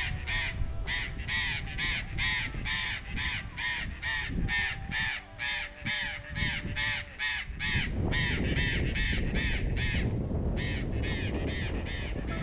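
Burrowing parrots (loros tricahue) calling over and over in a rapid run of about three calls a second, with a brief pause near the end, over a low rumble.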